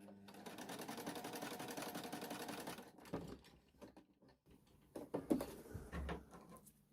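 Elna 120 electric sewing machine stitching for about three seconds, its needle going up and down in a quick, even rhythm, then stopping. Afterwards come a few light clicks and knocks.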